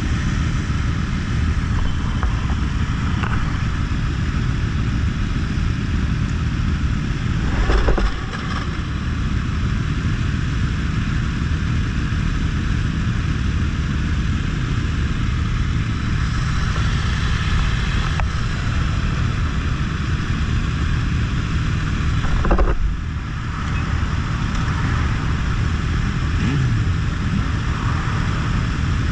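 Motorcycle engines running at low speed in a close column of bikes, heard from one of the bikes: a steady low rumble. Two brief louder bursts stand out, about eight seconds in and again about twenty-three seconds in.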